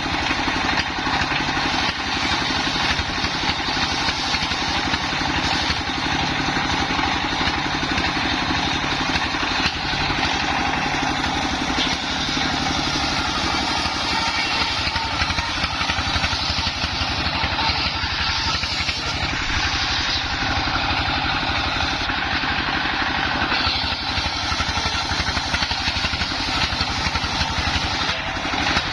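Engine-driven circular saw rig running steadily while its blade rips salam wood into battens; the cutting noise swells for several seconds in the middle.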